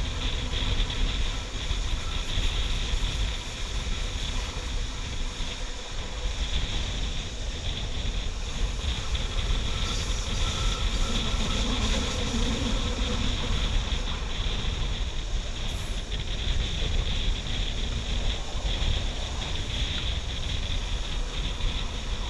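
Steady running noise of a moving passenger train, a low rumble from the wheels on the track, heard from an open window with wind rushing over the microphone.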